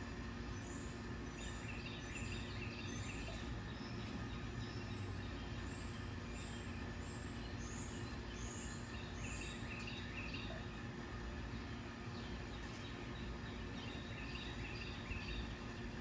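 A bird giving a long series of short, high chirps, about two a second, over a steady low rumble of background noise. The chirps stop a little past halfway, and a few fainter ones come near the end.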